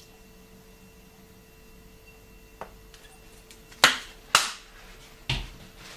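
Handling of a plastic mayonnaise squeeze bottle: a faint click, then two loud, sharp clacks about half a second apart and a duller knock about a second later, hard plastic meeting a hard worktop.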